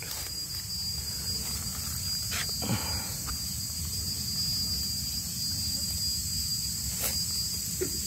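Steady high-pitched chirring of insects, over a low rumble, with a single sharp click about seven seconds in.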